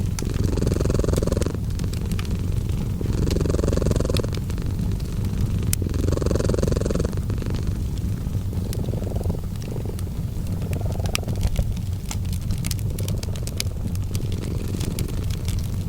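A cat purring with a constant low rumble that swells with each breath, about every two to two and a half seconds, over a wood fire crackling with scattered sharp pops that come thicker in the second half.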